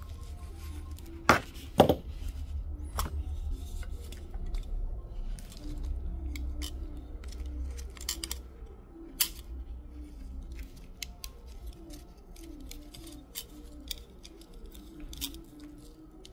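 Bonsai pruning shears snipping juniper twigs: a run of irregular sharp snips, the two loudest close together about a second and a half in. Soft background music plays under them.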